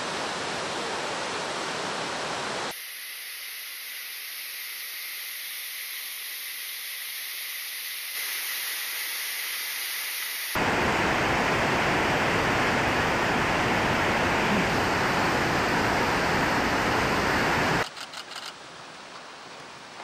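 Rushing water from a waterfall and a fast mountain stream pouring over rocks: a steady rush that changes abruptly several times. It is thinner and hissier for a stretch in the first half and loudest in the second half. Near the end it drops to a quieter stretch with a few light clicks.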